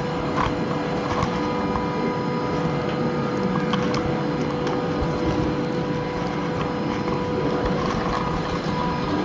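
Passenger train running: a steady rumble with a constant whine and a few light clicks.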